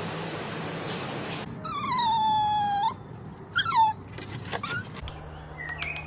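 An animal whining: after a steady background hiss, one long high whine that falls slightly, followed by two short cries.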